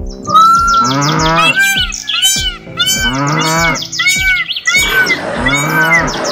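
Cow mooing about three times, laid over quickly repeated bird chirps and a steady thumping beat.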